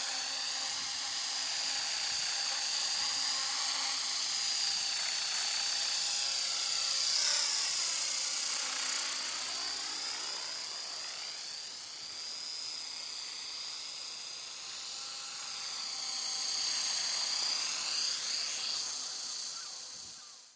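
Electric Align T-Rex RC helicopter in flight: a high-pitched whine from its motor and spinning rotor head. The pitch of the whine dips and rises again twice as it manoeuvres, loudest a few seconds in.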